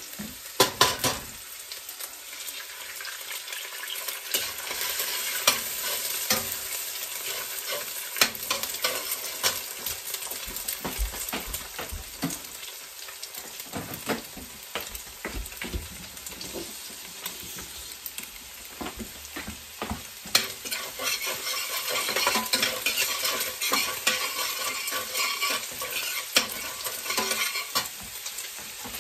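Garlic and onion sizzling in oil in a stainless steel frying pan while a metal slotted spatula stirs, scraping and clacking against the pan. The sizzle is steady, the clacks come often and sharply, and both get busier in the second half.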